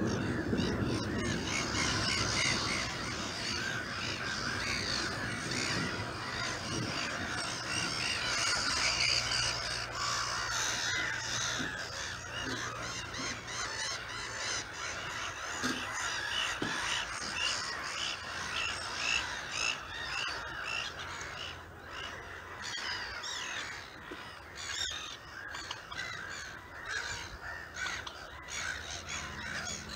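Wetland birds calling: a busy, continuous mix of short, high calls repeated in quick succession.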